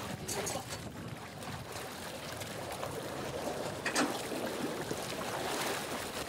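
Floodwater splashing and sloshing around a person wading and swimming, with a brief sharp sound about four seconds in.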